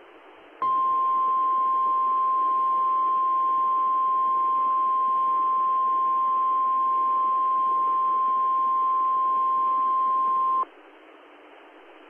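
NOAA Weather Radio 1050 Hz warning alarm tone: one steady tone held about ten seconds over radio hiss, starting about half a second in and cutting off sharply, signalling that a warning message follows.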